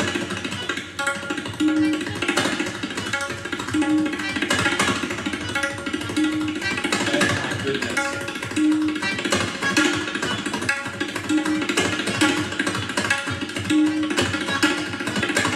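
Tabla solo: rapid, dense strokes on the pair of drums, with the tuned right-hand drum's ringing note sounding again and again through the patter.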